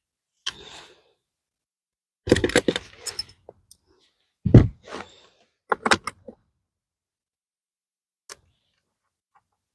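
Hinge hardware and tools being handled against the wooden raised bed: short metallic clatters and clicks, with one heavier thump about four and a half seconds in. No drill or impact driver runs.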